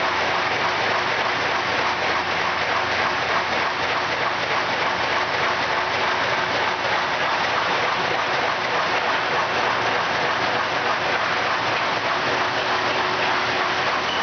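Aerosol can manufacturing line running: a steady, dense hiss and rattle of can-making machinery and cans moving along conveyors, with a faint steady hum underneath.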